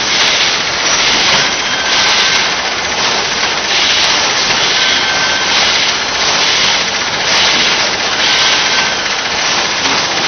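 Coffee packaging machine running: loud, steady mechanical noise with a hiss that swells and fades in a regular rhythm, one to two times a second.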